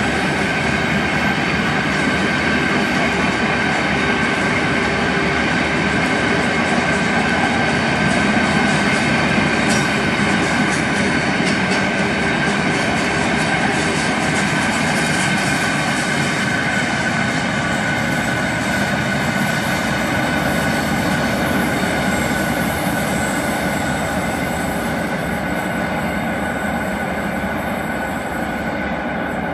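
Freight train wagons, mostly empty timber-stake flat wagons, rolling past on the rails: steady wheel and rail noise with a thin, steady squeal from the wheels, easing a little near the end as the train draws away.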